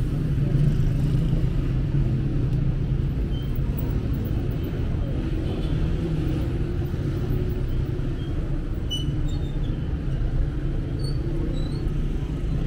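Steady low rumble of city street traffic, with buses and cars running close by, a little stronger in the first couple of seconds.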